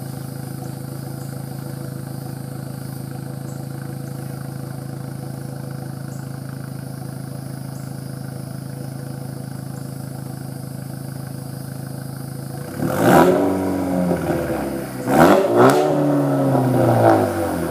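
Dodge Caliber SRT-4's turbocharged 2.4-litre four-cylinder idling steadily through an open exhaust, then revved about a second before the two-thirds mark and again a couple of seconds later in quick blips. Each rev swoops up in pitch and falls back to idle.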